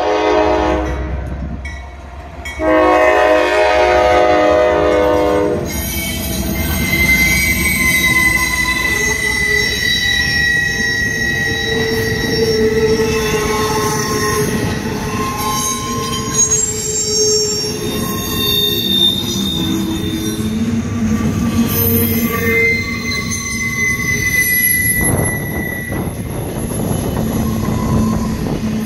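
A Norfolk Southern freight locomotive's air horn sounds a blast that ends about two seconds in, then a second long blast lasting until about five and a half seconds. After that, the double-stack intermodal cars roll past with a steady rumble and high-pitched wheel squeal.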